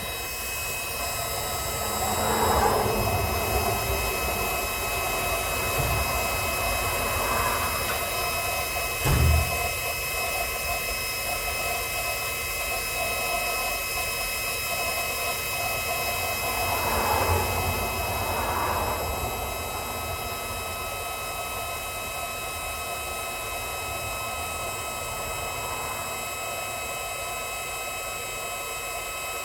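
A heating tool running steadily on a rusted, stuck timing cover bolt: a constant hiss with a high steady whine, swelling a couple of times, and a single dull knock about nine seconds in.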